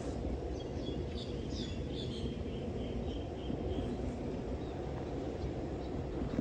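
A songbird sings a quick run of short, high chirps for a few seconds, over a steady low rumble of distant road traffic.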